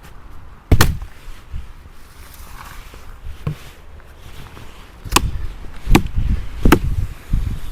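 Four sharp knocks: one about a second in, then three close together near the end, over a low rumble of wind buffeting the microphone.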